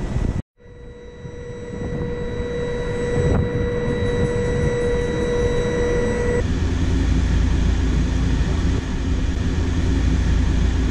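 Stationary electric Intercity train humming at the platform: after a brief dropout near the start, a steady high whine with overtones grows louder, then about six seconds in it gives way to a louder, deeper steady hum from the auxiliary equipment of the E464 electric locomotive.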